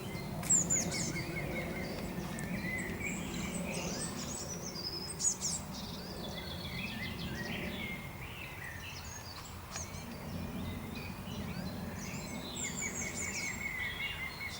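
Several birds calling and singing, with a green woodpecker's laughing call, a quick run of evenly spaced notes, about a second in and again near the end. A steady low rumble runs underneath.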